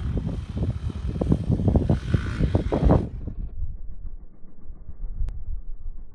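Wind buffeting a phone's microphone in irregular gusts, loud for about three seconds and then dropping to a fainter low rumble, with a single click near the end.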